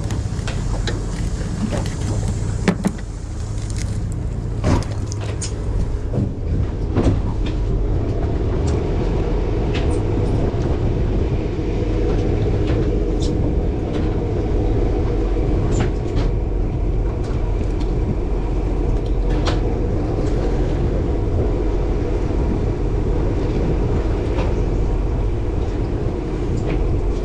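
Steady low drone of a fishing boat's engine running, with a few scattered knocks and clicks on deck, the loudest about three and seven seconds in.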